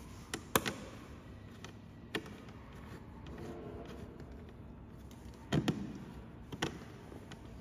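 Light clicks and taps of a 4 mm Allen key working the bottom bolts of an electric bike's battery tank cover: a few in the first second, one about two seconds in, and louder ones near the end.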